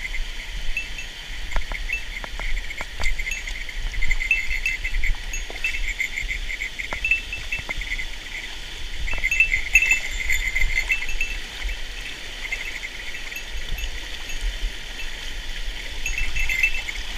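A chorus of high, rapidly pulsed trilling calls from small streamside creatures, swelling and fading in waves, over the steady low rush of a mountain stream. A few light clicks come and go.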